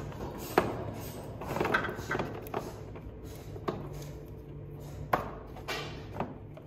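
Scattered sharp clicks and light knocks, about seven of them, as a fog-light wiring connector and its harness are pushed up through a hole in a plastic van bumper cover and tap against it, over a low steady hum.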